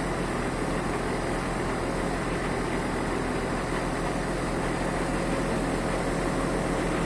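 Diesel engine of a crane truck idling steadily, a low even hum with no change in pitch.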